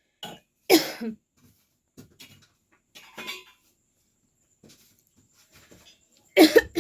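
A person coughing: short, loud coughs about a second in and again near the end, with only faint small sounds between.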